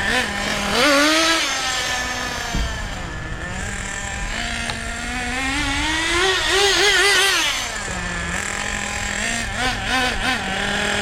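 Team Associated Nitro TC3's small nitro engine running as the car is driven, its pitch rising with throttle briefly about a second in and again for a longer wavering burst around six to seven seconds in, then dropping back to a steady lower note.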